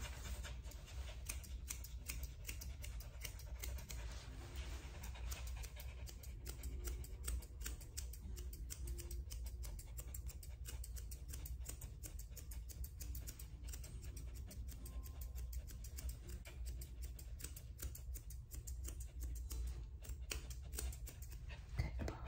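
Dog-grooming shears snipping repeatedly through the hair of a dog's muzzle, a long run of quick small clicks, over a low steady hum.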